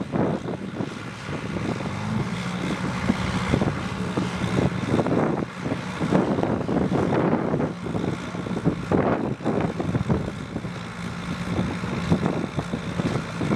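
Chamberlain 9G tractor engine running steadily under load as it drags a weighted tractor-pull sled.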